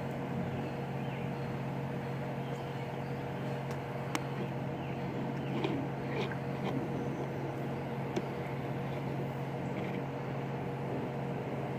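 A steady machine hum with a constant low tone, and a few faint clicks.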